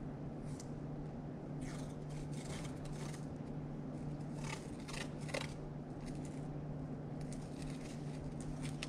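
Handling noise from a small item worked in the hands: short bouts of crisp crinkling and clicking, over a steady low hum.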